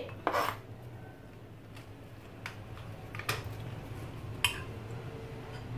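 A short scrape as chopped chillies are pushed off a cutting board into a salad bowl, then a metal spoon tossing cucumber salad in a ceramic bowl, clinking against the bowl four times.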